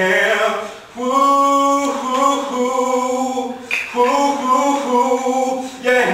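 A single unaccompanied voice singing long, held notes, with a short pause about a second in.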